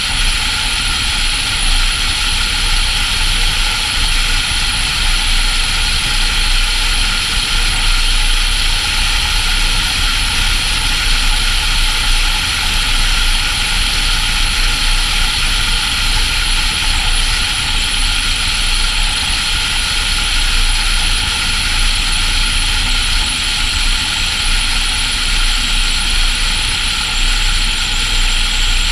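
Volvo FH16 700 truck cruising at steady road speed: a continuous mix of engine, tyre and wind noise with a strong low rumble, unchanged throughout.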